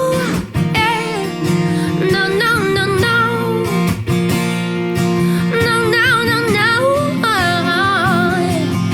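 A female singer holding long notes and singing ornamented runs with vibrato, over a guitar accompaniment.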